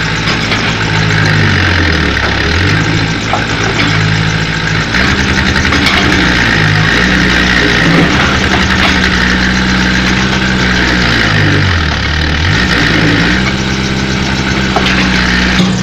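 Hitachi excavator's diesel engine running steadily. Its pitch sags briefly and recovers twice, about two seconds in and again near twelve seconds, with a few faint knocks.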